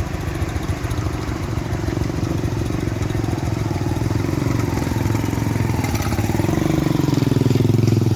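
A vehicle engine running steadily. It grows louder and rises slightly in pitch over the last few seconds.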